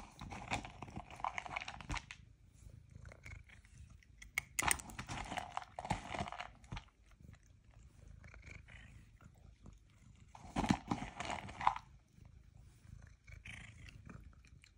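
A domestic tabby cat meowing three times, each call lasting one to two seconds.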